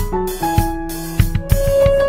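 Instrumental background music: a melody of short stepping notes over a steady drum beat.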